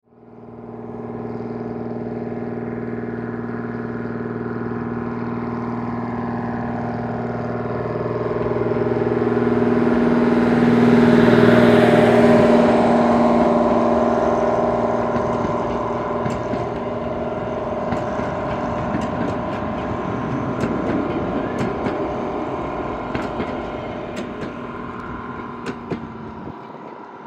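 Diesel-electric tram locomotive running steadily as it hauls a train of wooden coaches past, loudest about halfway through. As the train moves away, the wheels click and knock over the rail joints and the sound fades.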